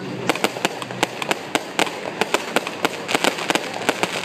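Fireworks display: shells bursting in a rapid, irregular run of sharp bangs and pops, several a second, growing denser about three seconds in.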